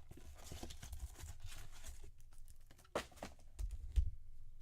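Trading-card packaging being opened by hand: wrapper crinkling and tearing for about two seconds, then quieter handling with a sharp tap about three seconds in and a few low thumps near the end.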